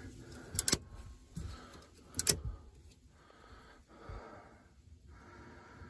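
Circuit-breaker switches on the front of two LiFePower4 server-rack lithium batteries being flipped on: two sharp snaps, about a second and a half apart.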